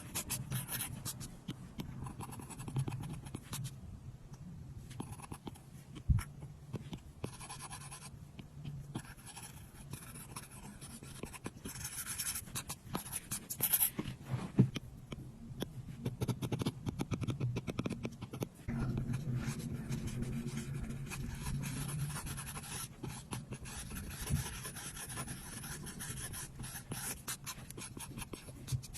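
Apple Pencil tip tapping and sliding on an iPad's glass screen while drawing and colouring: a run of quick ticks and scratchy strokes, with a couple of sharper taps.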